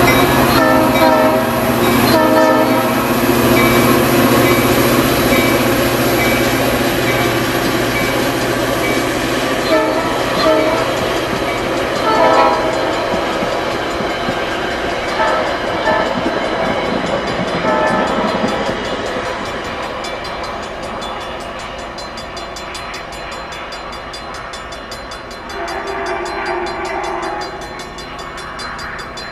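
A Metra F40PHM-2 diesel locomotive runs loudly past, followed by double-deck commuter coaches rolling by with wheel noise and several short squeals. The sound fades as the train moves away. Near the end a train horn sounds from further off.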